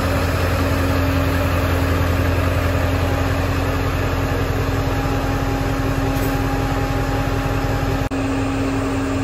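Fuel transfer pump running with a steady mechanical hum, with a level tone, while diesel is pumped from a pickup's transfer tank through a hose into a semi truck's fuel tank. The hum dips for a moment about 8 seconds in.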